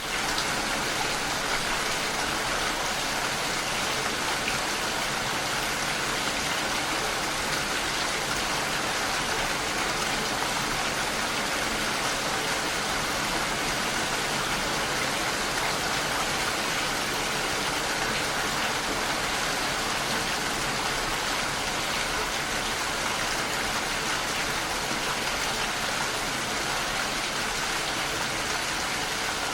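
Steady heavy rain: an even, unbroken hiss of falling rain that fades in quickly at the very start.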